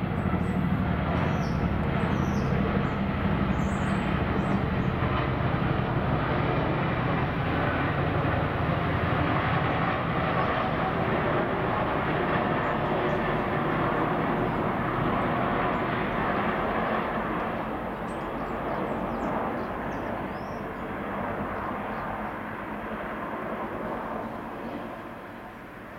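Two Boeing CH-47 Chinook tandem-rotor helicopters passing overhead, their rotors chopping loudly and steadily. The sound fades away over the last several seconds.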